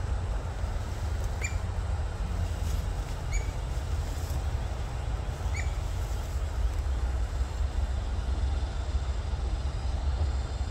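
Steady low rumble with three short, high bird chirps about one and a half, three and a half, and five and a half seconds in.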